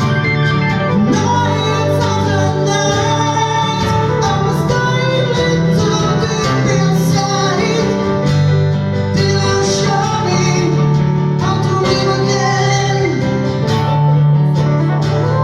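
Live band music played in concert: plucked guitar over a steady bass line, running without a break.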